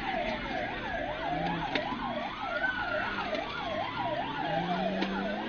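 Police sirens: a fast yelp sweeping up and down about three times a second, with a slower wail rising and falling over it.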